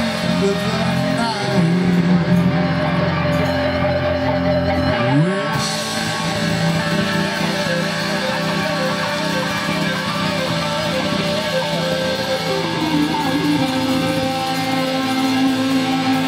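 Live rock band playing: electric guitars over bass and drums. A low note slides up about five seconds in.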